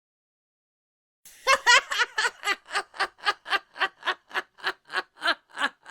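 A woman laughing in a rapid, even "ha-ha-ha", about four pulses a second, starting about a second and a half in, loudest at the outset.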